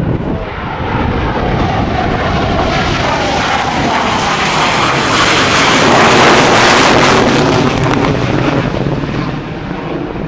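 Boeing F/A-18 Hornet's twin General Electric F404 jet engines on takeoff as the jet races low along the runway. The noise builds to its loudest as the jet passes, about six seconds in, then fades as it pulls up into a steep climb.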